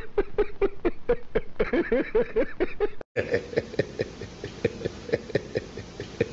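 A man laughing hard in quick, repeated 'ha-ha' pulses, about five or six a second. About three seconds in it cuts suddenly to another man laughing the same way over a slight hiss.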